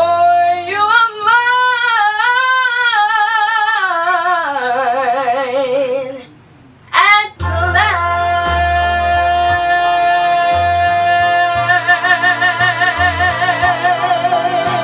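A 12-year-old girl singing over a backing track: a long wavering run that falls in pitch, a short break about six seconds in, then one long held note that breaks into vibrato near the end.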